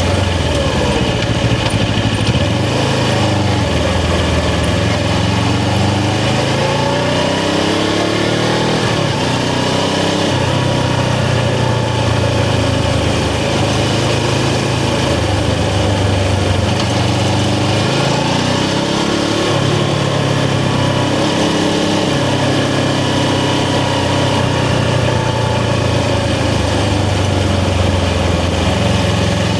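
Suzuki GS500's parallel-twin engine running while riding, its pitch climbing and dropping several times as the throttle is opened and closed through the gears.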